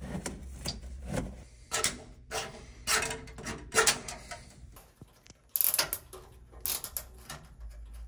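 Handling noises from a metal dryer vent elbow and plastic zip ties: scattered clicks, taps and rubbing, with a quick cluster of clicks a little past the middle.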